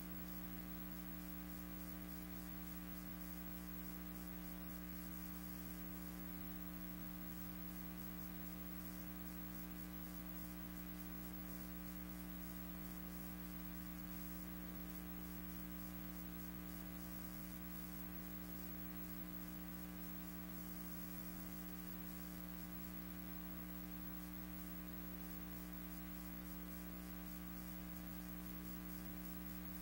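Steady electrical mains hum with a faint hiss, unchanging throughout, in place of any sound from the scene on screen.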